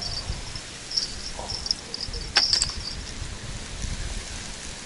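Insects chirping in high, on-and-off trills, over a low, uneven rumble, with a sharp click about two and a half seconds in.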